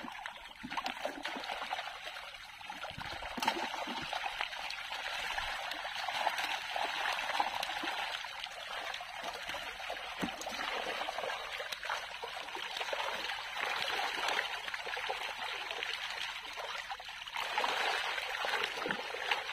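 Continuous splashing and churning of shallow water as a crowd of pond-raised bawal (pacu) thrash inside a drawn seine net while they are scooped out by hand.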